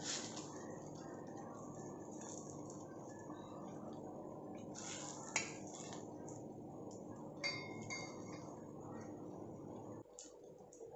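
Steel spoon scraping and clinking against an iron tawa while spreading omelette batter. A sharp clink comes about five seconds in and another about seven and a half seconds in. A steady low rushing noise underneath cuts off near the end.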